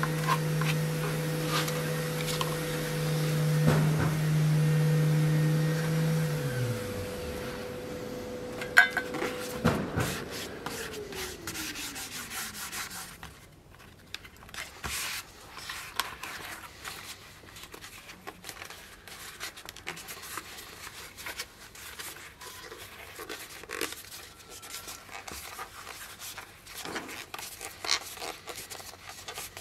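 A machine in the workshop hums steadily, then its pitch falls as it winds down, and the hum stops about six to seven seconds in; a higher tone slides down and fades by about thirteen seconds. After that come light rubbing and scraping of hands and a glue brush on leather, with scattered small clicks.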